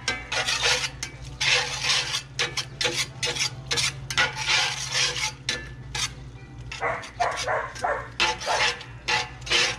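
Slotted metal spatula stirring and scraping a dove and tomato stew around a cast-iron skillet: repeated scrapes against the pan, about one or two a second.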